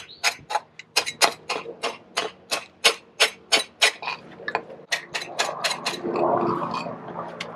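A stiff hand brush scrubbing a soaked terracotta tile in quick, even strokes, about three a second, which turn fainter and less regular after about four seconds.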